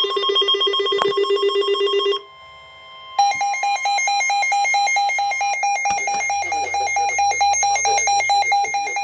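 Weather alert radio sounding its electronic alert alarm, a rapid warbling tone. The warbling stops about two seconds in, and after about a second's pause a higher-pitched warbling tone starts and keeps going: the radio going off for a new severe thunderstorm warning.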